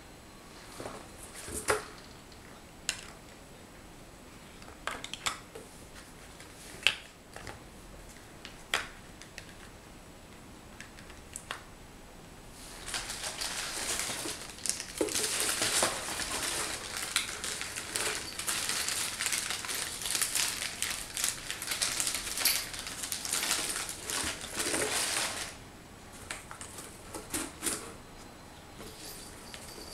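Small metal cat food tins being set down and knocked together, with scattered sharp clicks. Then, a little before halfway, a long stretch of continuous crinkling and rustling of packing material being handled in a cardboard box. A few more clicks follow near the end.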